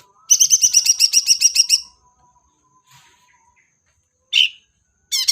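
Cucak ranting leafbird call played as a trapping lure: a fast, high trill of about nine notes a second lasting about a second and a half, a single short note about four seconds in, then the next trill starting near the end.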